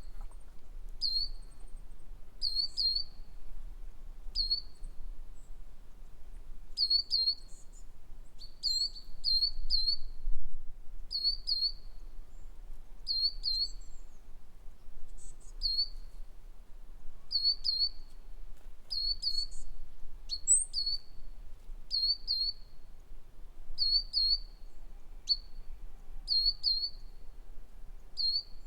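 A songbird repeating short, high chirps, singly or in quick pairs, about once a second.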